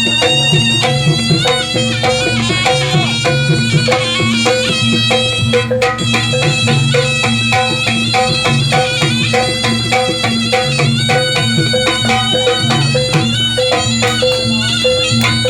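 Javanese barongan accompaniment music: a loud, reedy wind melody over continuous drum and gamelan percussion, keeping a steady beat.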